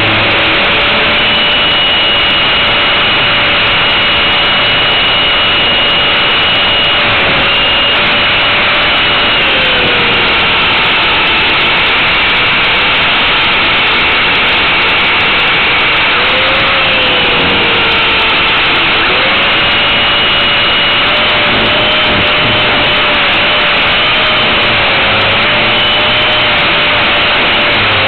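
Align T-REX 450 Pro electric RC helicopter heard from its own onboard camera in flight: a loud steady whine of motor and rotor over heavy rushing noise. The pitch dips and recovers twice, about ten and about seventeen seconds in.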